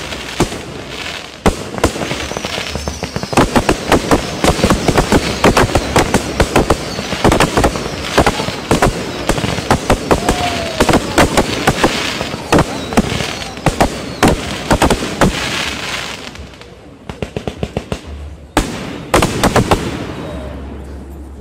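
Fireworks display: a rapid volley of aerial shell bursts and crackling bangs, packed closely together for most of the time, then thinning out to a few separate bangs near the end.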